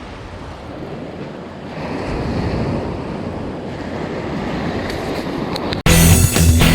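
Waves washing onto a surf beach, with wind rushing on the microphone; the surf swells louder about two seconds in. Near the end it cuts off abruptly to loud electric-guitar music.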